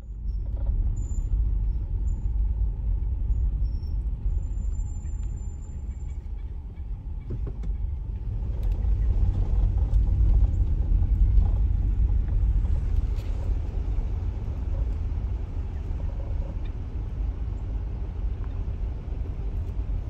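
Car driving along a gravel road, heard from inside the cabin: a low, steady rumble of tyres and engine that starts abruptly and swells a little partway through.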